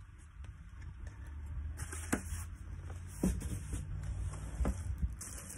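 Handling noise as a slow cooker's glass lid and pot are moved: a few light knocks, about two, three and four and a half seconds in, over a low rumble.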